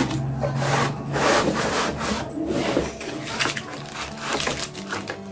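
Cardboard packaging scraping and rubbing against foam and plastic wrap in a run of irregular swishes, with plastic bags crinkling, as an accessory box is pulled out of a laptop's packing.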